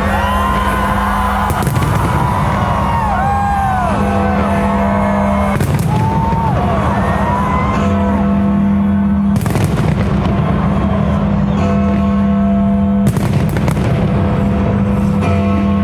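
Fireworks bursting with loud bangs about every four seconds, four in all, over a music soundtrack of sustained notes.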